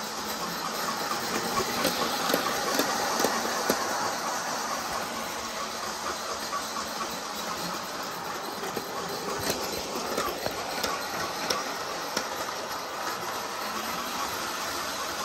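Bachmann G-scale Percy model locomotive running on its track with a train of trucks: a steady motor-and-gear running noise with irregular clicks of wheels over the rail joints.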